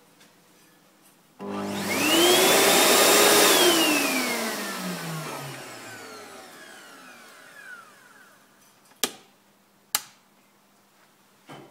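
Automatic hand dryer's blower motor switching on abruptly, spinning up to full speed with a rising whine, then winding down with a long falling whine after it cuts out. Near the end there are three sharp clicks from the dryer's cold/warm switch underneath.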